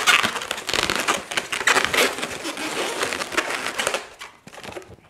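Latex modelling balloons (white 350s) rubbing against each other as a balloon is twisted and wrapped into a pinch twist. The rubbing is dense and loud, then stops about four seconds in, leaving only a few faint clicks.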